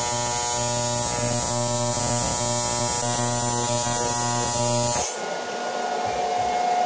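AC TIG welding arc on aluminium plate buzzing steadily, then cutting off abruptly about five seconds in as the pedal is released, leaving a fainter steady hiss with a thin whine.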